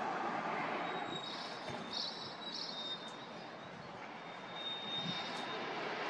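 Steady rushing noise of distant city traffic, easing a little midway and swelling again near the end, with a few faint high chirps about a second and two seconds in.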